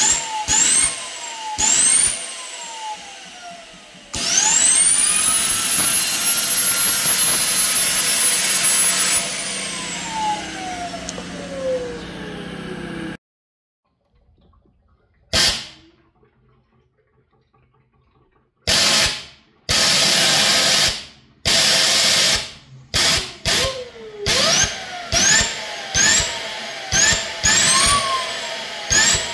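Compressed-air Tesla turbine spinning up under a blast of air, its whine rising steeply to a very high pitch and holding, then falling slowly as it coasts down before cutting off. After a quiet gap the air is pulsed in a quick run of short blasts, each giving a brief rising whine.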